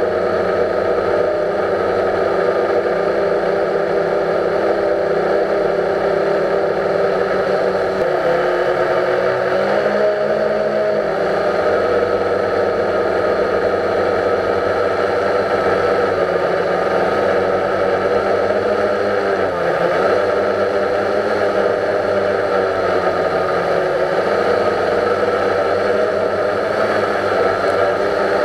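Quadcopter drone's electric motors and propellers whirring steadily, heard close up from the camera mounted on the drone, with the pitch shifting briefly about eight to eleven seconds in and again around twenty seconds in as it manoeuvres.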